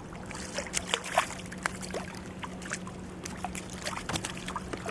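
Small irregular splashes and drips of water at a kayak's side as a hooked sea robin is brought in, over a steady low hum.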